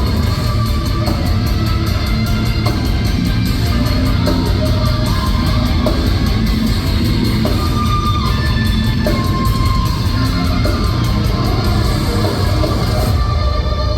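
Heavy metal band playing live: distorted guitars, bass and drums with rapid cymbal hits, the cymbals dropping out shortly before the end.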